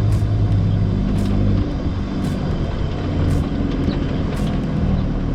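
A 4WD vehicle's engine running while driving, a steady low drone that shifts slightly in pitch, with faint regular ticks about once a second.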